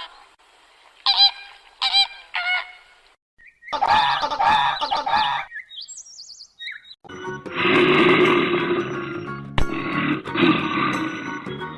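Honking bird calls: a few separate short honks, then a denser run of calls, and from about seven seconds in a thick chorus of many birds honking together, like a flock.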